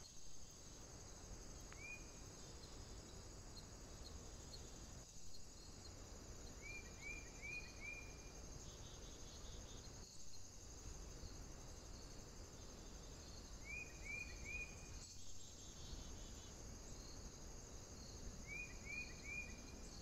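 Faint, steady high-pitched insect chorus, like crickets, in woodland. A small bird gives short upswept call notes, once near the start and then in runs of three at intervals.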